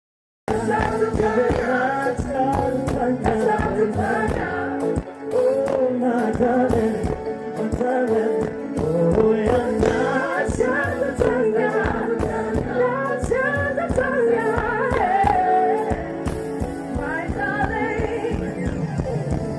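Song with singing that cuts in abruptly after a moment of silence: sung melody lines over steady instrumental accompaniment with a regular beat.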